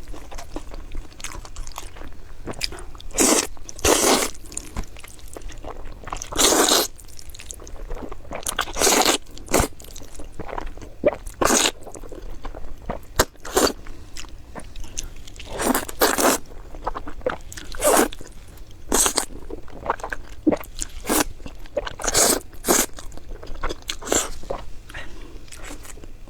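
Close-miked eating of crunchy food: loud crunching bites and chewing at irregular intervals, every one to three seconds.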